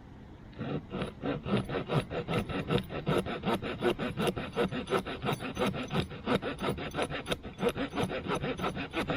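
Victorinox Ranger Swiss Army knife's small wood-saw blade cutting through a wet stick with quick back-and-forth strokes, about four to five a second. It starts about half a second in and stops just before the end.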